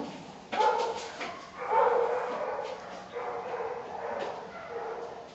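Shelter dogs barking, several barks about a second apart, echoing off the kennel's block walls.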